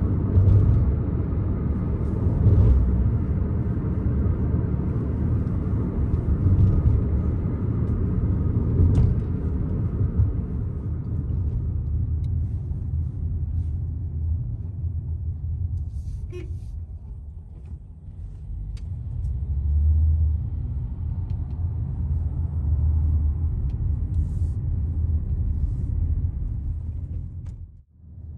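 Low, steady rumble of a car driving on city roads, heard from inside the cabin: engine and tyre noise. It dies down briefly about two-thirds of the way through, swells again, and cuts out abruptly just before the end.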